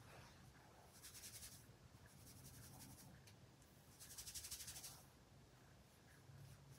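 Faint rustling of fingers fluffing and scrunching freshly diffused, dry curly hair, in three short bursts: about a second in, between two and three seconds, and between four and five seconds.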